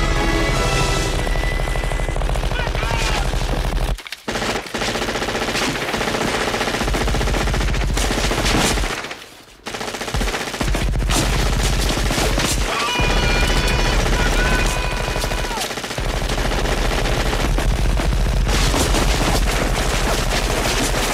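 Rapid machine-gun fire sound effects in long bursts, breaking off briefly about four seconds in and again just before ten seconds, with music underneath.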